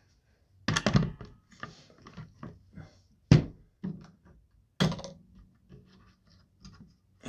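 An Umarex Gauntlet air rifle being handled and set on its bipod on a workbench: a series of knocks and clicks, the loudest thunk about three seconds in.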